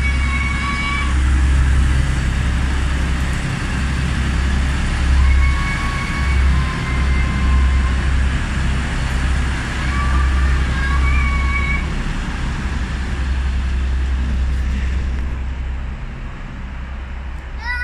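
Class 185 diesel multiple unit pulling out of the station and moving away, a steady heavy low rumble with running noise over it. A few brief high held tones sound around five seconds in and again around ten seconds in.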